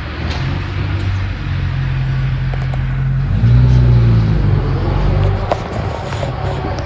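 A motor engine running steadily, its low drone swelling briefly in pitch and loudness about halfway through.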